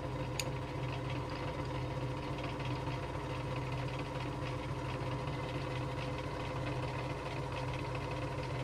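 Myford Series 7 lathe running, a constant motor and drive hum, with a small click about half a second in.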